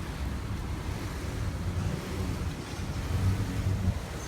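Steady low rumble of idling car engines and traffic.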